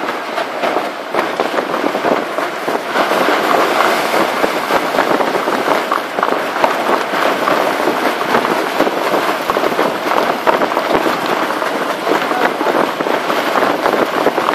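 Strong wind buffeting the microphone on a fishing boat in rough seas: a loud, steady rush with dense crackling.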